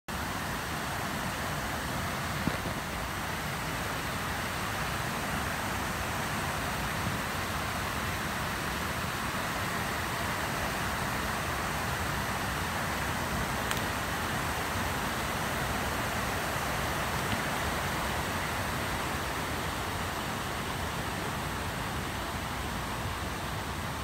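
Steady rush of a rocky rainforest stream, water running over and between boulders, with a few faint knocks along the way.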